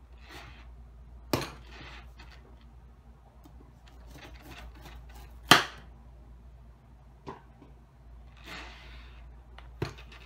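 A kitchen knife working into a jackfruit's thick, spiky rind on a wooden cutting board: a few sharp knocks, two of them loud, about a second and a half in and about five and a half seconds in, with softer scraping between them.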